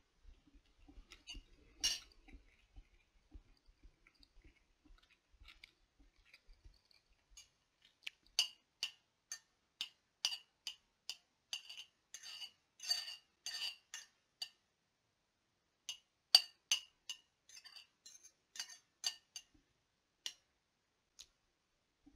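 Fork clinking and scraping against a ceramic plate while scooping up scrambled eggs, a run of quick light clinks through the second half. Before that, quiet chewing.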